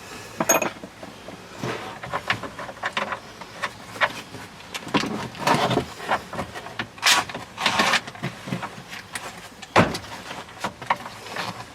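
Plastic console trim and shifter parts of a Can-Am Maverick X3 being handled and pressed back into place: scattered clicks, scrapes and rustling, with one sharp snap near the end.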